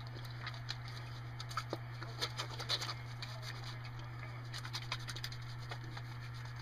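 Soapy hands being rubbed and wrung together, making irregular wet squishing and small smacking clicks that are busiest in the middle. A steady low hum runs underneath.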